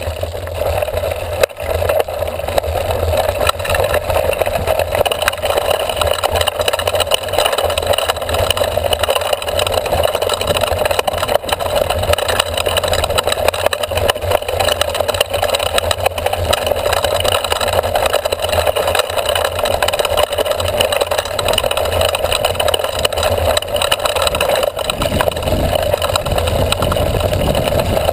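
Mountain bike rolling over a dirt trail, heard through a seatpost-mounted camera: a steady rumble of wind and tyres on the ground, with constant small rattles and knocks from the bumps.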